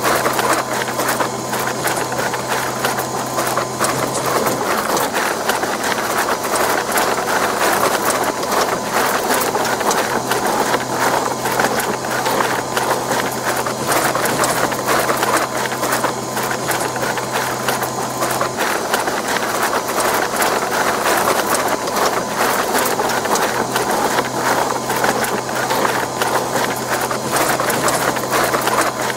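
Electric bread-dough mixer running at a steady speed: a constant motor hum under a dense, continuous clatter of small knocks from the kneading mechanism.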